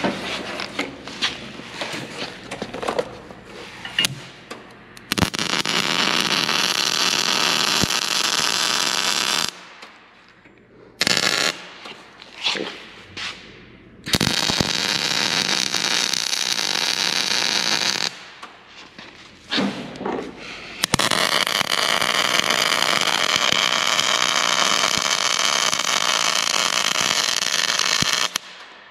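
Wire-feed welder arc crackling steadily as beads are run on steel brackets: three long runs of about four, four and seven seconds and one short burst, with clicks and knocks of handling the gun and parts in the gaps.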